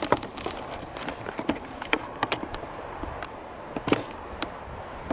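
Footsteps moving through dry brush, with irregular sharp cracks and snaps of twigs and branches, the loudest about four seconds in.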